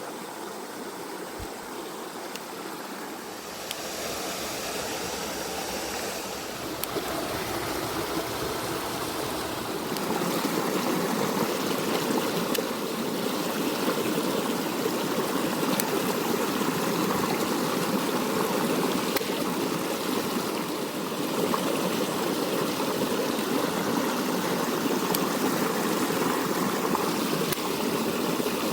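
Mountain stream rushing over rocks, running high after rain. The rush gets louder about four seconds in and again about ten seconds in.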